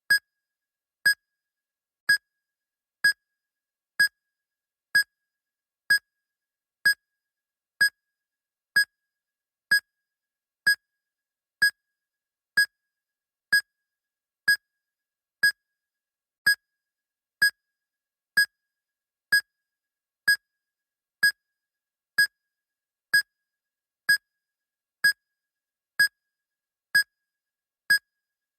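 Medical monitor beeping steadily: short, identical high beeps, about one a second, with silence between them.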